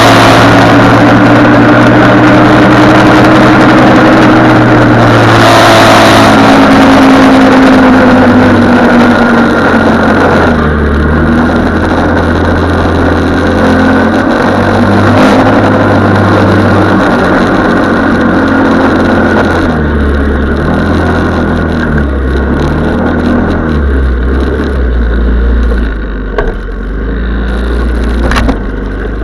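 SF150L snowmobile engine running under way, its pitch shifting up and down as the throttle changes, lower and a little quieter in the second half, with a few sharp knocks near the end.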